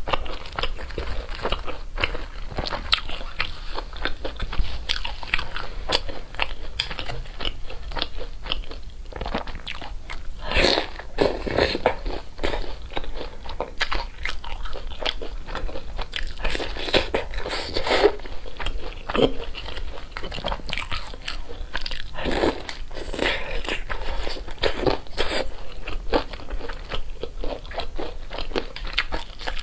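Breaded deep-fried cutlet being bitten and chewed: a continuous run of crisp crunching, with louder clusters of crunches every few seconds.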